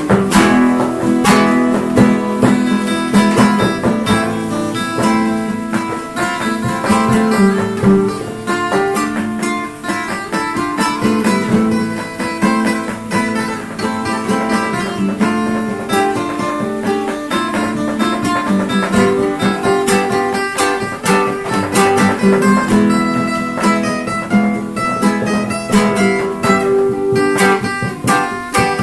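Instrumental music led by acoustic guitar, with dense plucked and strummed notes and sharp percussive strokes throughout.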